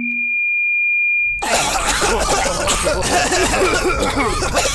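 A steady high-pitched tone sounds alone. About a second and a half in, an audience starts coughing and clearing their throats loudly, reacting to a joke with coughs in place of laughter.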